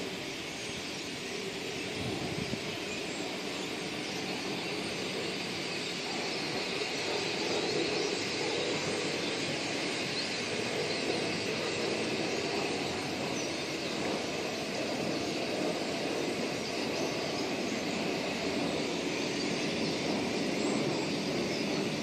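A large flock of small birds chirping all at once, a dense, continuous chatter of many overlapping calls, over a steady low rumble.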